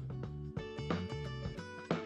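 Instrumental closing theme music played under the end credits, led by plucked guitar notes.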